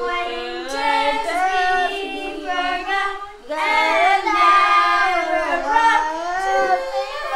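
Children singing together in held, gliding notes, with a short break about three and a half seconds in.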